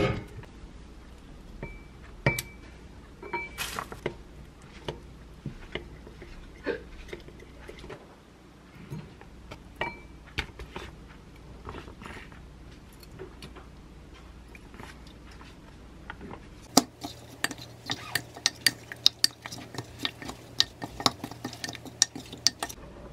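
Wooden spoon clinking and tapping against a glass mixing bowl as sauces are spooned in. From about two-thirds of the way through comes a fast run of knocks as pieces of chicken breast are stirred through the marinade.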